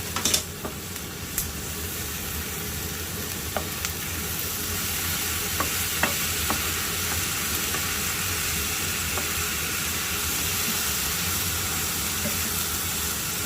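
Pork belly with onion and green onion sizzling steadily in a frying pan, growing a little louder about four seconds in. A few light clicks, like a utensil against the pan, come in the first half.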